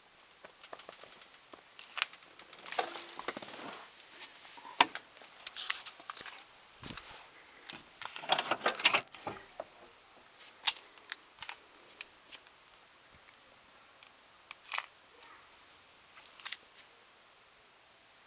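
Scattered clicks, knocks and rustles from handling the camera and moving about an old car's interior and doors, loudest in a short clatter about eight to nine seconds in, with a few single ticks after.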